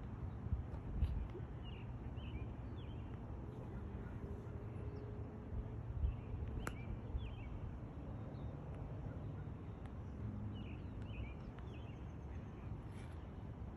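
Outdoor ambience: small birds chirping in short clusters of calls, over a steady low rumble. A single sharp click comes about two-thirds of the way through.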